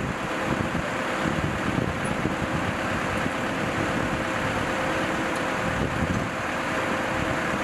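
Steady engine drone with a faint constant hum, and wind buffeting the microphone.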